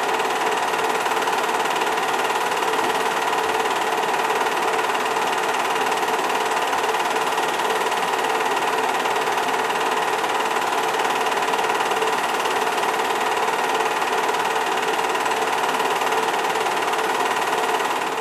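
8 mm film projector running: a steady mechanical whir with a constant hum that does not change in level or pitch.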